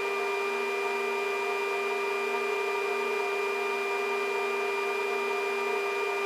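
Steady mechanical whine with several held tones over a hiss: the S-64 Skycrane's twin turboshaft engines and gearbox running on the ground.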